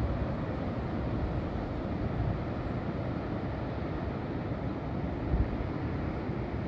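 Wind buffeting the microphone over a steady rush of ocean surf breaking below, with a stronger gust about five seconds in.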